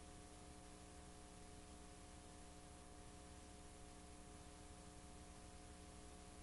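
Near silence: a faint, steady hiss with a low electrical hum made of several steady tones, the playback noise of a blank stretch of videotape.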